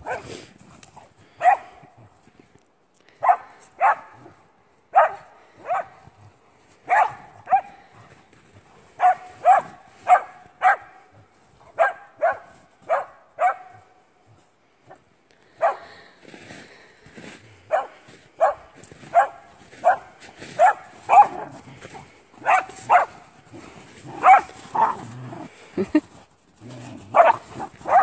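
A dog barking repeatedly in excited play: short, sharp barks, often two in quick succession, with a brief pause about halfway through.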